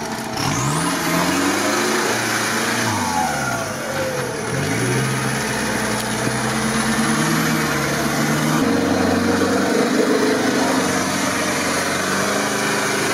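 Engine of a six-wheeled (6x6) off-road pickup revving hard under load as it climbs a steep bank out of a river ford. The revs rise and fall several times, then hold high for a stretch.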